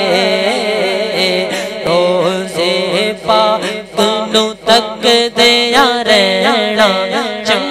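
Male voice singing a Punjabi naat unaccompanied, drawing out a wavering, ornamented melody over a steady low hum.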